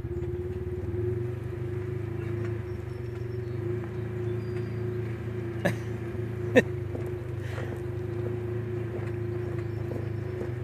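Polaris RZR 1000's engine running steadily while the machine sits high-centred on its frame, stuck on a dirt mound. Two sharp knocks a little under a second apart come just past the middle, the second the loudest sound.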